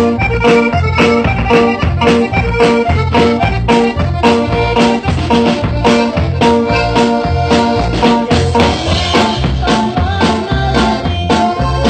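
A small live band, electric guitar, bass guitar and drum kit, playing an upbeat tune with a steady beat through amplifiers.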